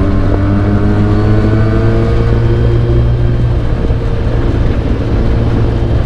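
Mazda RX-8's Renesis rotary engine heard from inside the stripped race-car cabin, pulling with its pitch rising slowly over the first few seconds, then running on at a steady speed under road noise.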